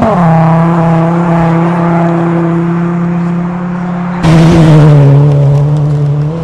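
Rally car engines at full throttle on a gravel stage: an engine note drops in pitch as a car goes by, then holds a steady high-revving note, with a sudden much louder surge about four seconds in as the next car comes closer.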